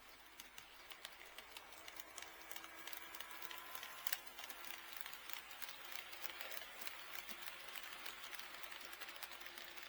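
HO-scale model train running on sectional track: a quick irregular patter of small clicks as the wheels pass over the rail joints, gradually getting louder as the train comes closer, with one sharper click about four seconds in.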